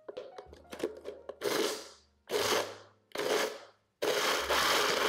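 NutriBullet blender pulsed four times, grinding rolled oats and dates into a coarse crumble. The last pulse runs about a second, and a few clicks come first as the cup is pressed onto the motor base.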